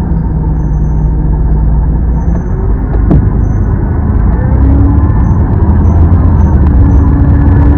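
A motor vehicle's engine running steadily with road rumble; the engine note drops and grows louder about four and a half seconds in. There is a single click about three seconds in.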